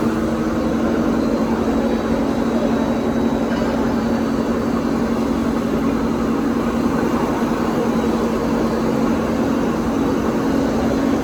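Horizontal film slitting machine running at speed: a steady mechanical hum with a constant low drone.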